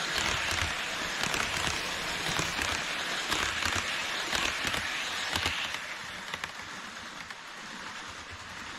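HO-scale E5 series shinkansen model running on its track, a steady rolling hiss of wheels on rail with many light clicks. It fades about six seconds in as the last car passes.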